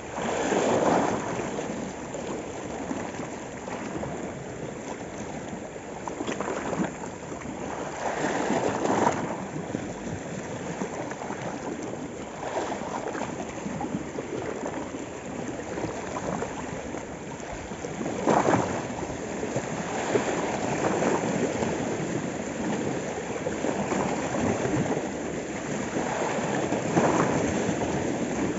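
Small sea waves washing and splashing over shoreline rocks, swelling in louder surges every several seconds.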